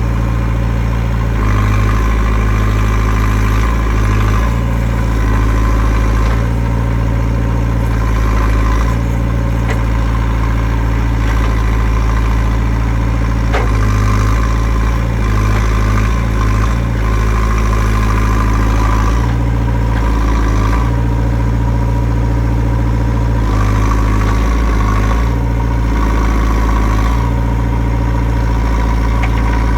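JCB 3CX backhoe loader's four-cylinder diesel engine running steadily, its note swelling and easing every few seconds as the load changes. A single short click comes near the middle.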